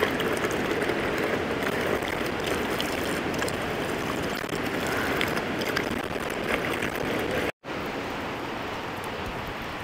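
Steady rushing noise, broken by a split-second dropout about three-quarters of the way through and a little quieter after it.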